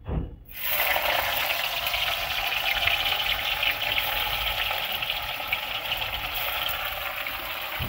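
Paneer cubes sizzling in hot oil in a kadhai: the sizzle starts suddenly about half a second in, as the cubes go into the oil, then carries on steadily with fine crackling.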